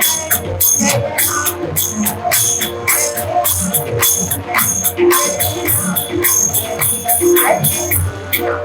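Devotional bhajan music: small metal hand cymbals struck in a fast, steady beat, about four strikes a second, over sustained harmonium-like notes and drum strokes.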